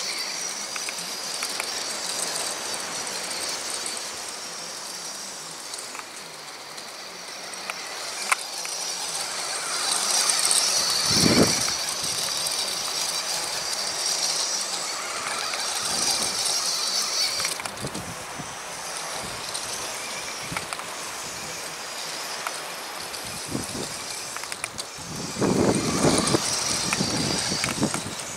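Battery-powered Big Rock RC monster truck driving across grass, its electric motor and gears whining high and thin. The whine swells and fades several times as it speeds up and slows. There are a few low rumbles, the biggest about eleven seconds in and near the end.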